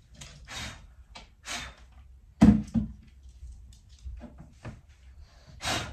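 A series of short rustles and knocks from things being handled and moved, the loudest a sharp knock about two and a half seconds in.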